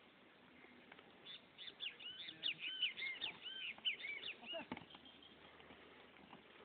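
A bird chirping in a quick run of short, arched, high notes for about three seconds, starting about a second in and stopping near the five-second mark.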